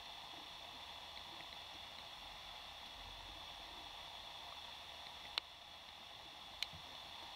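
Underwater ambience picked up by a submerged camera: a faint, steady hiss, with two sharp clicks about a second apart near the end.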